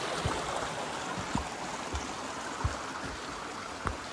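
Small mountain stream rushing over rocks, with a few low thuds of footsteps on the forest trail.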